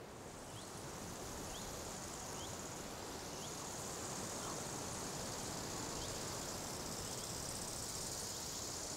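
Insects buzzing in a steady high drone, with short faint chirps about once a second, over a low, even background noise. The drone starts at the beginning and cuts off near the end.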